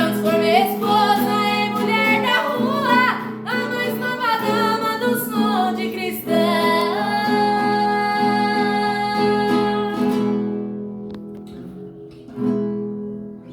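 Song sung with plucked guitar accompaniment: the singing holds a long final note that fades away, and a last strummed chord sounds near the end.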